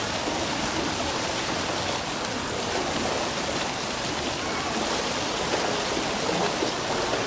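Steady rush of running water, even and unbroken, with no distinct splashes.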